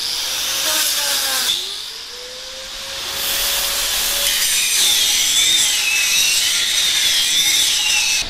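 Angle grinder grinding the cut edge of a branch hole in a steel pipe, deburring it before welding. It eases off about two seconds in and bites again a second later, and its whine wavers in pitch under load near the end.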